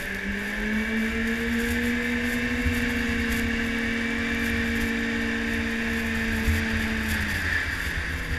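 Yamaha snowmobile engine running under throttle while riding, its pitch rising over the first couple of seconds and holding steady, then dropping about seven seconds in as the throttle eases. Wind buffets the microphone throughout.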